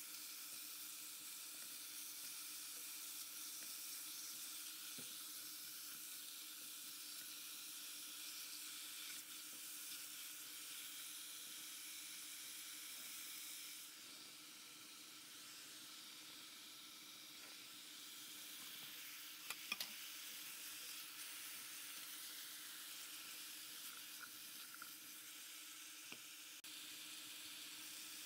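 Chicken pieces sizzling as they sauté in ghee or butter in a pot, a steady frying hiss that eases a little about halfway. A couple of sharp clicks, likely a utensil against the pot, come about twenty seconds in.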